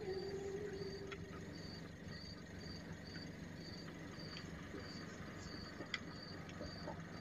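Crickets chirping steadily in the dark, short high chirps about twice a second, over a low steady hum, with a faint click near the end.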